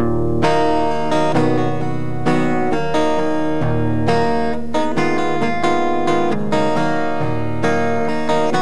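Two acoustic guitars strumming chords in a steady rhythm, the fuller strumming coming in about half a second in.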